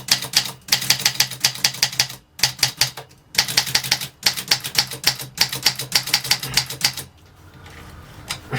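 1943 Olympia Plana portable typewriter being typed on: rapid key strikes, several a second, in three runs with short pauses between them, stopping about seven seconds in.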